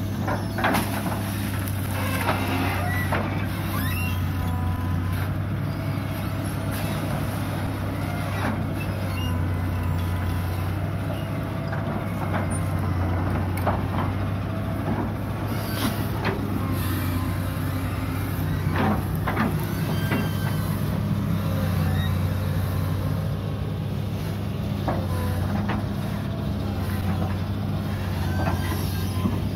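Hitachi UH083 long-arm excavator's diesel engine running steadily under working load, with scattered short knocks as the bucket and arm work.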